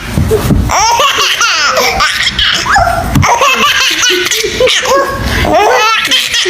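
A baby laughing hard in repeated bursts of high-pitched belly laughs and giggles.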